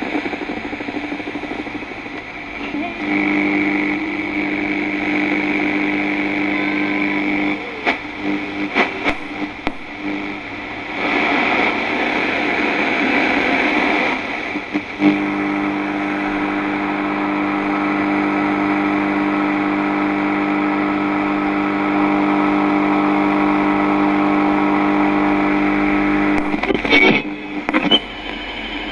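Old radio being tuned across frequencies: static hiss with a steady buzzing hum that breaks off and comes back, a stretch of plain static about halfway through, and crackles and clicks as the dial moves near the end.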